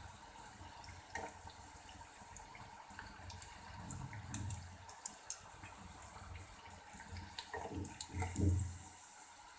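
Hot oil sizzling and crackling as deep-fried bread rolls are lifted out of the pan, with a few light knocks and bumps of handling along the way.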